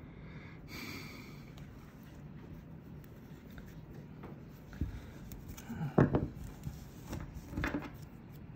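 Cotton string rubbing as it is wound and pulled tight around a folded cloth bundle, then several sharp clicks and knocks in the last few seconds, the loudest about six seconds in, as a pair of scissors is handled.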